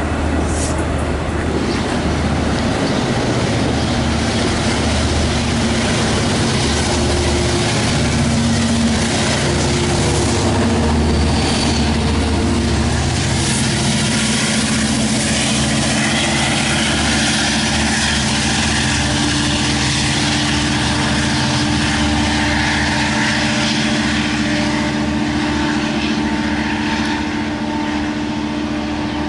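Long Island Rail Road DE30AC diesel-electric locomotive pushing its train past, the diesel engine running loud and continuous: a low rumble with several steady droning tones that settle and hold through the second half.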